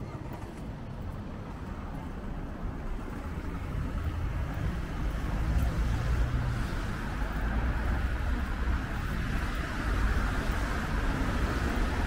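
Road traffic on a wet city road: a steady low rumble of engines, with tyre hiss that grows louder about a third of the way in as cars pass close by.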